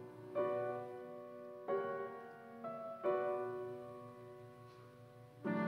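Slow piano accompaniment to a flute solo: a few soft chords, each struck and left to fade, with the flute resting between phrases. Near the end a fuller held note comes in as the flute resumes.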